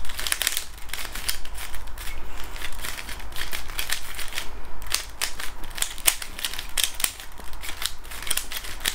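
Rubik's Cube being twisted by hand: quick, irregular runs of plastic clicks and clacks as the layers are turned.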